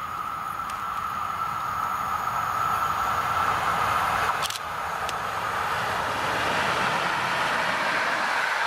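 Electric locomotive hauling passenger coaches approaching and passing close by: wheel and rail noise growing steadily louder, with a steady high-pitched hum over it. One sharp click sounds about halfway through.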